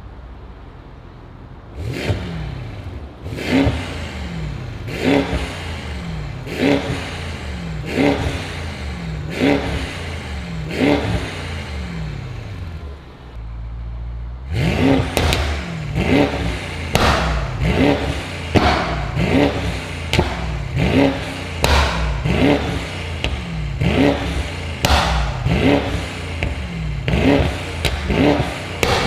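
Mercedes-AMG GT63 S's twin-turbo V8 through a Fi Exhaust valved catback with catless downpipes: idling, then blipped in short revs about every second and a half with the exhaust in normal mode. About halfway it drops back to idle, then revs again in Race mode with the exhaust valves open, louder and quicker, about one rev a second.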